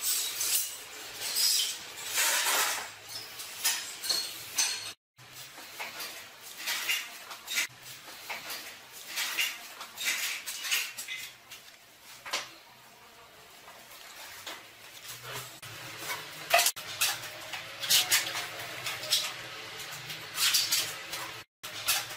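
Irregular clinks, taps and scrapes of hand tools and plastic parts on hard tile during tiling work.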